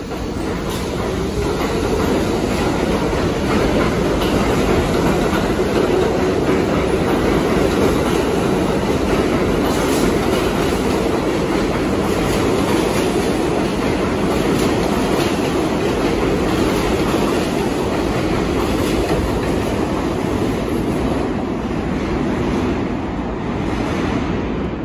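New York City Subway train running past on the track: a steady, loud rumble of steel wheels on rail with clickety-clack over the rail joints. It builds over the first couple of seconds and then holds steady.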